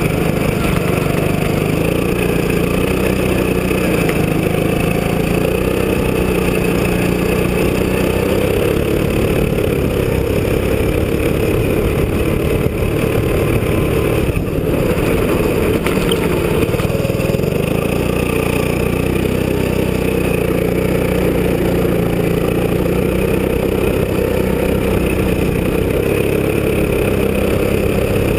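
Go-kart engine running at speed, heard from a camera mounted on the kart, its pitch rising and falling a little as the kart drives over snow.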